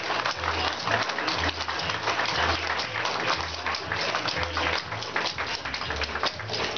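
Rapid clog-dance taps and an audience clapping along, over a song's steady bass beat of about one pulse a second.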